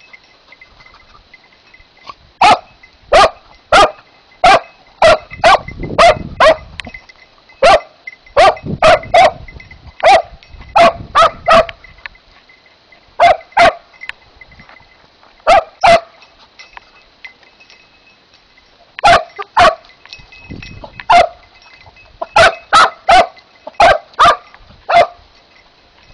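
Kopay hound baying on a hare's trail: about thirty loud, short barks in irregular runs of several at a time, with pauses between runs, starting a couple of seconds in.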